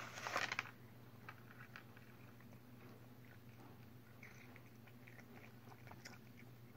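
A cat eating crunchy Temptations cat treats, with faint, scattered crunches as she chews. A brief, louder rattle and scrape at the start as her paw drags treats off the plate.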